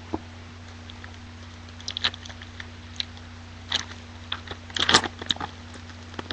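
2009 Topps Platinum trading-card pack wrapper being torn open and crinkled, an irregular scatter of crackles that is busiest about five seconds in. A steady low hum runs underneath.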